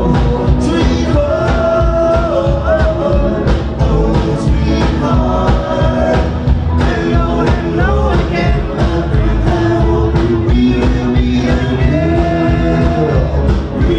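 Rockabilly band playing live, with a steady beat and a melody line over it.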